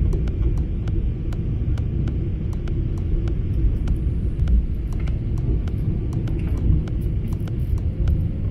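Cabin noise of a Japan Airlines Boeing 777-300ER on final approach with flaps down: a steady, deep rumble of airflow and engines.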